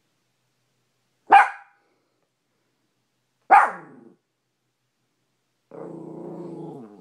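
A maltipoo barking at his reflection in a mirror: two sharp barks about two seconds apart, then a low growl lasting about a second near the end.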